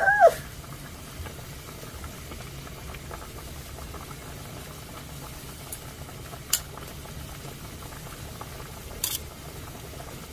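A pot bubbling steadily at a boil on a gas stove, with a few faint clicks. A brief, loud, high squeal rises and falls right at the start.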